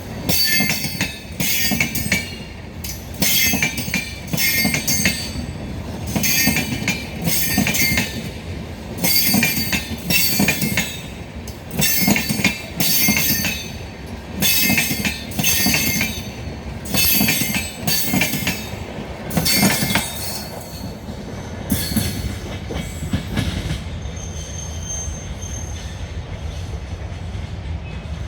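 Passenger coaches of an Indian express train rolling slowly past as it departs. The wheels squeal and screech in repeated bursts about once a second over a low rumble. The bursts stop about 20 seconds in, leaving a quieter rolling rumble.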